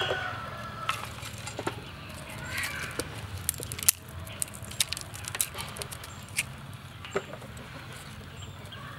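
Scattered sharp crackles and clicks from burning tinder and dry twigs being handled in a clay charcoal stove, thickest in the middle, over a low steady background hum. A chicken calls briefly at the start.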